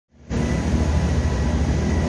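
Steady rushing noise with a low rumble that comes in just after the start: heavy rain and floodwater running through a flooded street.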